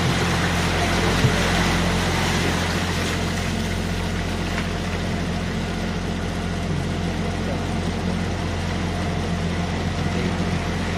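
Open canal tour boat's motor running steadily with a low, even hum.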